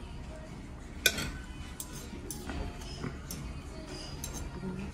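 Metal fork and spoon clinking and scraping against a plate while eating. One sharp clink comes about a second in, followed by several lighter clinks.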